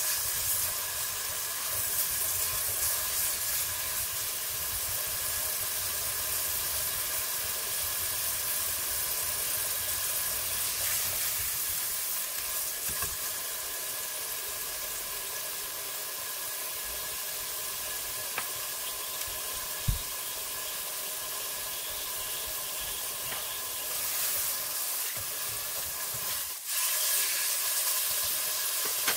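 Thin beef steak sizzling in oil in a ceramic nonstick frying pan, just turned over with a fork; the hiss is steady, with a single sharp knock about two-thirds of the way through, and the fork presses the steak again near the end.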